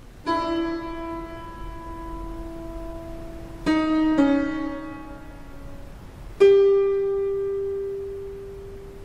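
Slow, sparse piano music: four single notes struck a few seconds apart, each left to ring and fade, the loudest about six seconds in.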